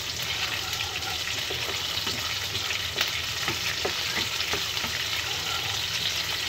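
Chironji seeds and green cardamom pods sizzling in hot ghee in a kadhai, stirred with a wooden spatula that scrapes and ticks against the pan now and then.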